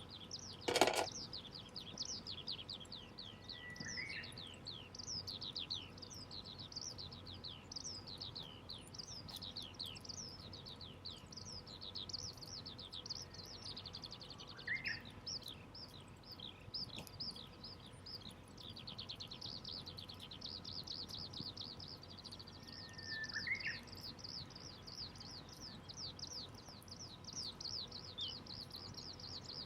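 Small birds chirping continuously in a dense chorus of short, high, falling notes, with a separate brief rising call three times. A single sharp crack about a second in is the loudest sound.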